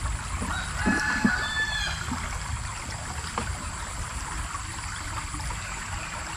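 A rooster crowing once, a single held call about a second in, over steady stream noise.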